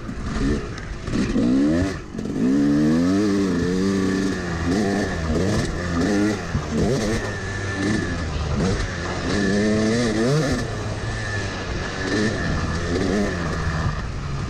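Yamaha YZ250 two-stroke dirt bike engine being ridden hard, revving up and falling back again and again as the throttle is opened and closed.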